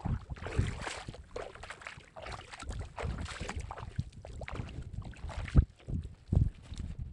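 Irregular water splashing from steps wading through shallow seawater, with sharp thuds and fabric rubbing against the handheld phone's microphone.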